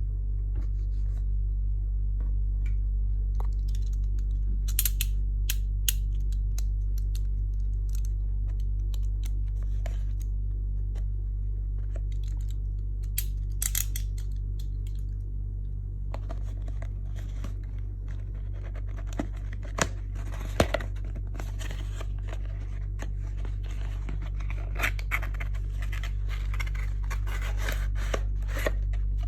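Beyblade toy packaging being opened and handled: scattered clicks and snips at first, then denser rustling and crinkling from about halfway through, over a steady low electrical hum.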